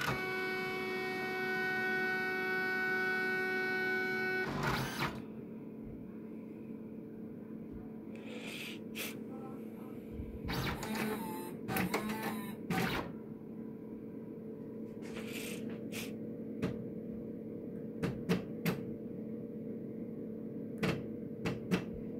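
IBM 5218 daisy wheel printer powering up. A steady buzzing tone lasts about four and a half seconds and ends in a clunk. After that the printer hums steadily, with a scattering of mechanical clicks and knocks from its mechanism.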